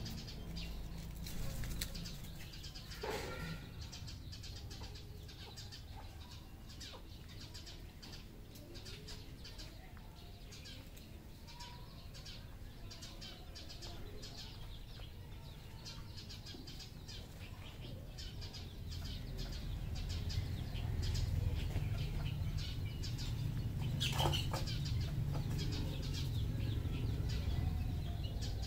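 Red junglefowl moving about with wings flapping and many scattered small clicks and scratches, with a couple of short bird calls, one about three seconds in and one near the end. A low rumble grows louder in the last third.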